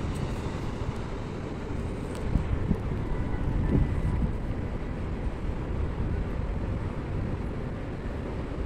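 Wind buffeting the phone's microphone, an uneven low rumble over steady outdoor noise, with one faint click about two and a half seconds in.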